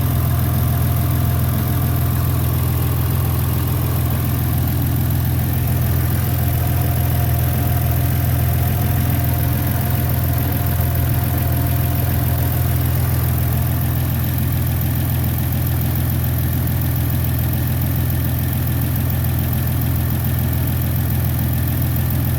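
Peugeot 607's 3.0 V6 engine idling steadily when cold, with a dull metallic knock in the engine. The owner suspects the hydraulic lifters or the camshafts.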